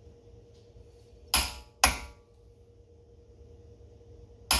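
Click-type torque wrench on a front axle nut clicking as it reaches the set torque of 188 ft-lb: two sharp metallic clicks about half a second apart, then a third near the end.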